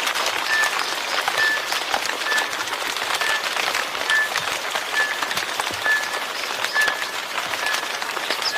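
Steady rain with the patter of drops hitting surfaces, and a short high peep repeating about once a second.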